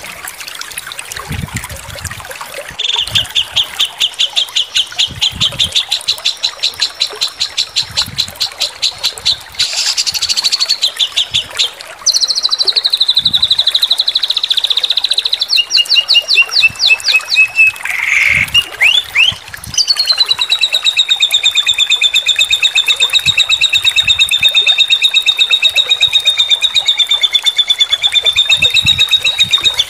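Songbird phrases joined one after another as a masteran song-training track. About three seconds in, a fast run of repeated high notes starts. A falling trill and a few short note runs follow in the middle, and a long, very fast trill holds through the last ten seconds.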